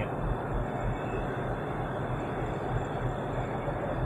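Tugboat engine running steadily, a low drone with an even rushing noise over it.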